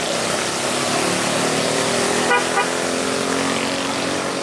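Bus engine running loudly close by, with a brief horn toot a little over two seconds in.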